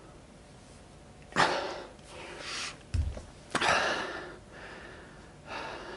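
A man breathing hard after a set of heavy kettlebell lifts: about four loud, sharp exhales and gasps about a second apart. A short dull thud about three seconds in.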